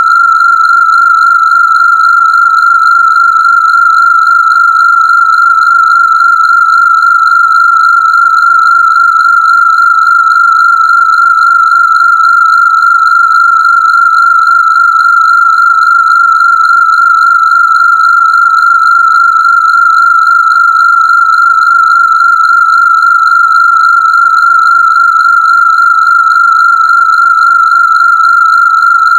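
A steady, high electronic Rife-frequency tone, held at one pitch with a slightly buzzy edge from its overtones.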